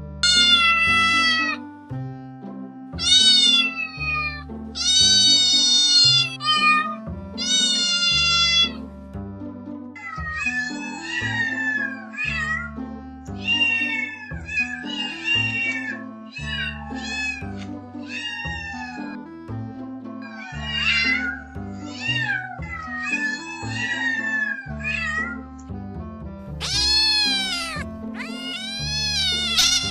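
Domestic cat meowing over background music. The first nine seconds hold four long, loud meows, each falling in pitch. A run of many shorter, quicker meows follows, and two loud meows come near the end.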